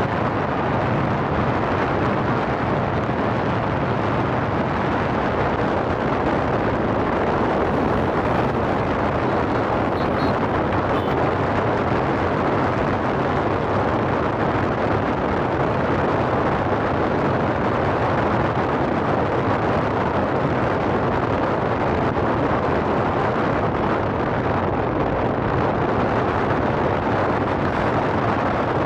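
Strong wind buffeting the microphone: a steady, loud, low rushing noise that covers all other sound.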